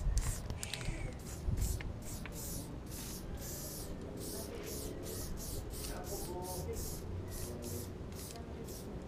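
Aerosol spray-paint can hissing in short, quick bursts, about four a second, as paint is dusted onto a wall to lay in shading.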